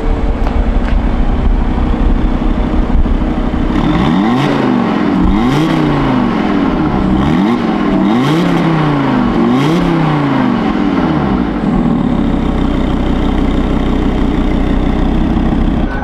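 Audi RS3's 2.5-litre turbocharged inline five-cylinder engine idling, then revved four times in quick succession, the exhaust note rising and falling with each blip, before settling back to idle.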